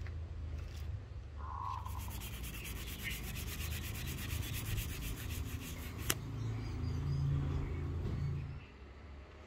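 Sandpaper on a hand-held sanding disc rubbed quickly back and forth over the top of a steel axe head, sanding the ebony handle end and its wedge flush with the eye. The rapid, even rubbing strokes run for about four seconds, then stop with a single sharp click.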